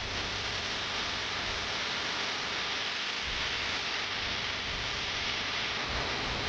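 Steady even hiss with no engine note, voices or distinct events.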